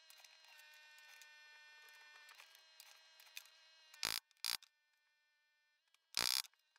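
Three short loud knocks as a hand punch is driven through leather into a wooden board: two close together about four seconds in, one near the end. Before them, a faint steady hum of several held tones.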